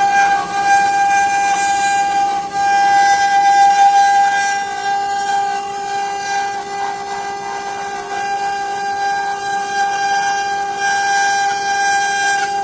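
CNC wood-carving router's spindle running with a steady high whine over a hiss.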